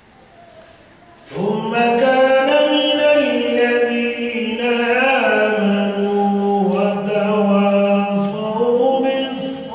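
Unaccompanied devotional chanting, a naat or salawat, begins about a second in and continues in long, slowly sliding held notes with no instruments.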